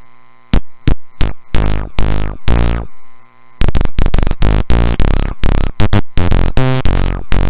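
Breadboarded DIY Arduino Uno bass synthesizer (BitBass) playing bass notes from a keyboard, its analog envelope set to decay only with no sustain: each note starts sharply and dies away, its brightness fading as it does. A few spaced notes, then a quick run of notes from about three and a half seconds in.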